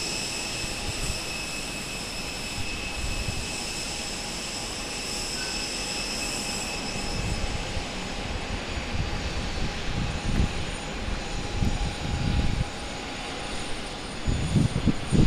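Jet airliner engine noise carrying across an airport apron: a steady rushing with thin high whining tones that fade about halfway through. Low gusts of wind buffet the microphone in the second half.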